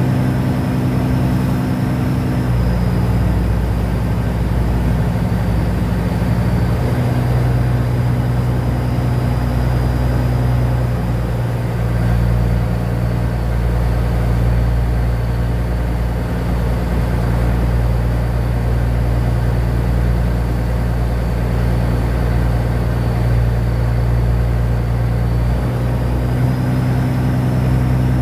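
River boat's engine running steadily, with a faint high whine above it; its note shifts slightly a couple of seconds in and again near the end.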